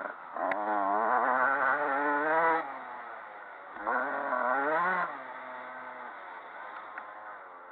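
Motocross dirt bike engine heard from on board, revving hard in two bursts, a longer one near the start and a shorter one around the middle, with the throttle eased between, then running quieter at part throttle. The pitch wobbles quickly throughout.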